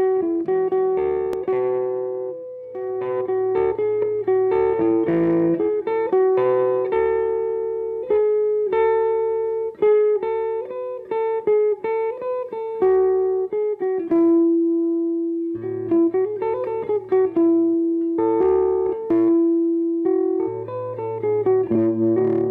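Guitar music: a slow melody of single plucked notes, each ringing and fading, with low bass notes joining now and then.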